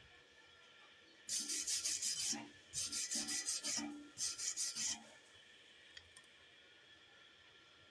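A hand tool scraping back and forth on metal in three bursts of rapid, hissing strokes, each about a second long.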